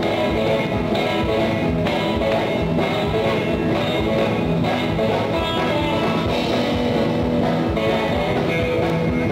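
1950s-style rock and roll played live by a band: electric guitars over bass, keyboard and drums keeping a steady beat.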